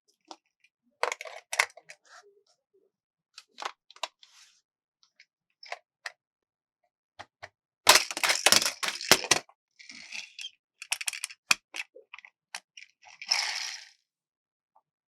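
Plastic toy and packaging handled by hand: scattered taps and clicks, a dense run of crackling clicks about eight seconds in, and a short crinkling rustle near the end.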